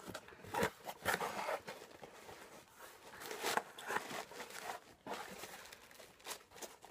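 A small cardboard shipping box being opened by hand: irregular rustling, scraping and tearing of the flaps and packing, in short uneven bursts.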